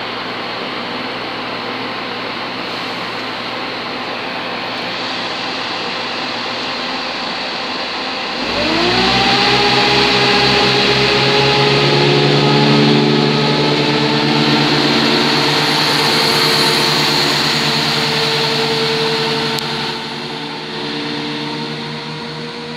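Diesel multiple unit standing at the platform with its engines idling. About eight seconds in, the engines throttle up with a quick rise in pitch that settles into a steady, louder engine note as the train pulls away, easing off near the end.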